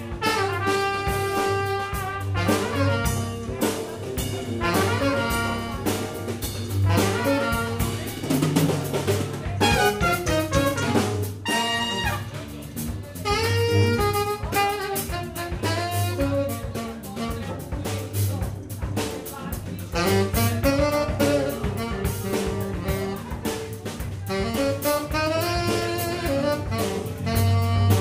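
Small jazz band playing live: tenor saxophone and trumpet over electric bass and drum kit.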